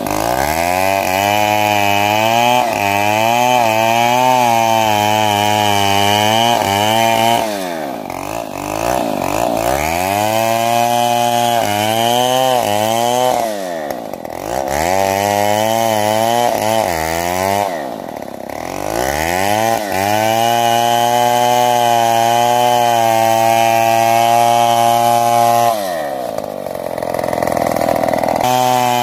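Stihl 070 two-stroke chainsaw cutting into a large sengon trunk under load, its pitch wavering. The engine drops in speed and revs back up about four times, near 8, 14, 19 and 27 seconds in.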